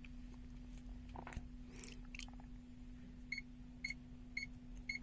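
ZOYI ZT-M2H multimeter in non-contact voltage mode beeping as it senses the live field of a mains socket: short high beeps about twice a second, starting a little past halfway. A few faint handling clicks come before, over a steady low hum.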